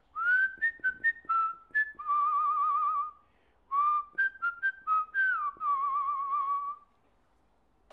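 A man whistling a short tune through pursed lips: two phrases of quick notes, each ending on a long, wavering held note.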